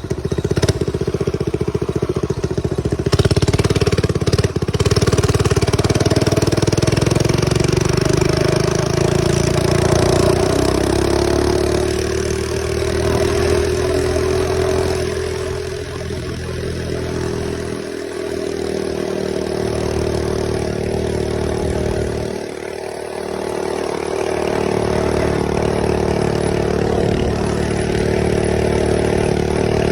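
Mini bike's small engine running while being ridden, its note climbing a little about a third of the way in and dropping back briefly twice in the second half as the throttle eases off.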